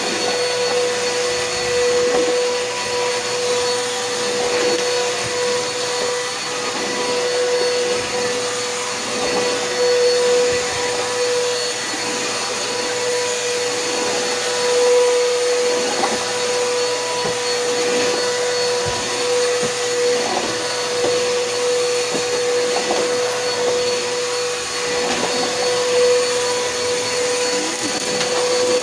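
Bissell PowerForce Helix upright vacuum cleaner running steadily, a constant motor whine over a dense airflow hiss, its loudness wavering slightly.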